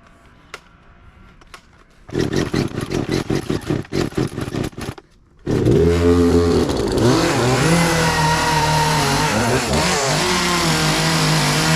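Hard-starting gas chainsaw: about two seconds in it sputters with a rapid popping for a few seconds and dies, then catches and runs, its revs wavering at first and then holding high and steady.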